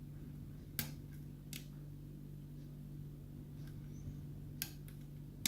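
Small sharp clicks of a hook pick working the pins of a six-pin pin tumbler lock under tension, a few at irregular intervals, the last near the end as a pin sets. A faint steady hum runs underneath.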